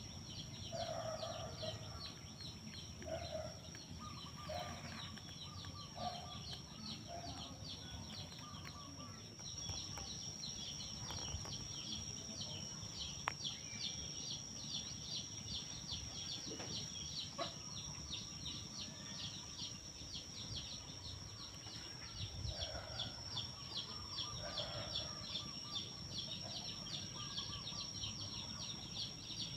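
Outdoor rural ambience: insects keep up a high, fast, steadily pulsing trill throughout, while a chicken clucks softly now and then, mostly in the first several seconds and again near the end.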